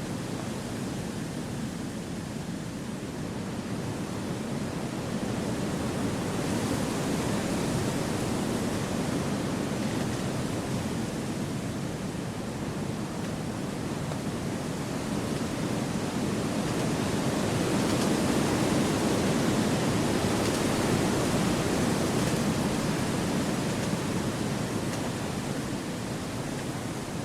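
Wind blowing through forest trees: a steady, even rushing hiss that swells gently about six seconds in and again around eighteen seconds, then eases back.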